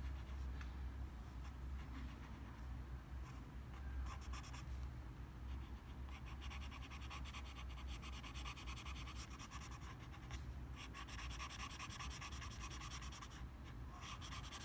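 Coloured pencil rubbing on paper in quick, steady back-and-forth strokes as it shades a drawing, with short breaks about ten and a half and thirteen and a half seconds in. A low steady hum runs underneath.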